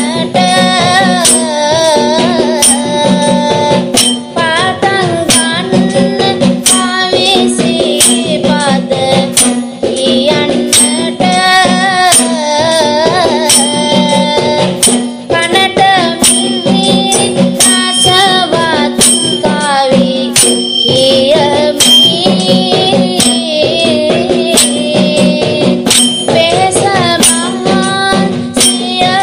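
A Sinhala folk poem (jana kavi) sung line after line over a steady drone, with rattling hand percussion keeping the beat.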